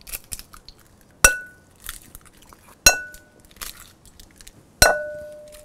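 Eggs cracked one after another on the rim of a glass mixing bowl: three sharp knocks, each leaving the glass bowl ringing briefly, with faint shell crackle in between.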